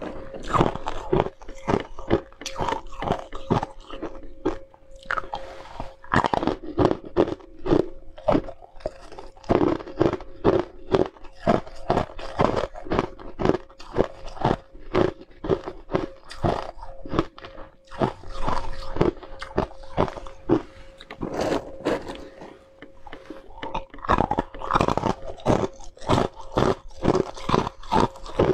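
Close-miked crunching of ice chunks being bitten and chewed, a rapid, uneven run of sharp crunches that eases briefly near the end. A faint steady hum sits underneath for most of it.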